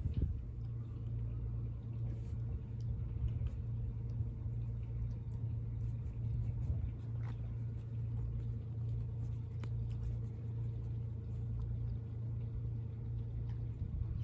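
Steady low hum of an engine running at idle, with a few faint ticks.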